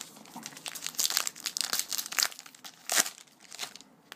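Paper card-pack wrapper crinkling and crumpling in the hands, a run of irregular crackles with one sharp crunch about three seconds in.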